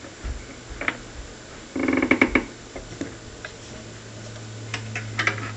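Scattered clicks and knocks of an HP35P enamel wire stripper being readjusted by hand, with a short buzzing rattle about two seconds in. A low hum comes in from about three and a half seconds.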